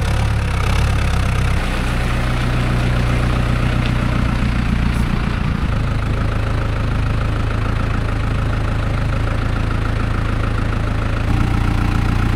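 Diesel engine of a blue farm tractor with a front-end loader, running steadily as it drives up. It is a low drone, and the engine note shifts abruptly a few times.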